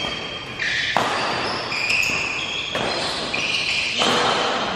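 Badminton rally in a large echoing hall: three sharp racket strikes on the shuttlecock, about a second in, near the middle and near the end, with short high squeaks of shoes on the court.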